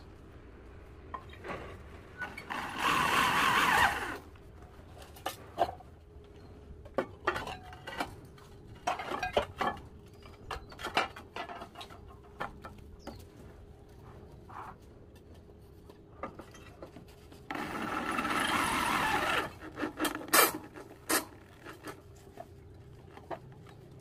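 Roof tiles scraping as they are slid into place over steel roof battens: two longer scrapes, one about three seconds in and one near the end, with scattered clicks and knocks of tile on tile and on the metal battens between them.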